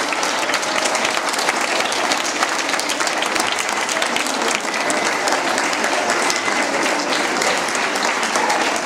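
Large audience of students applauding, many hands clapping together in a steady, sustained round of applause.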